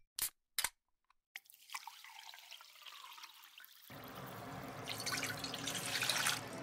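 Water poured into an aluminium saucepan, the stream growing steadily louder as the pan fills and stopping near the end. Two short clicks come just before it starts.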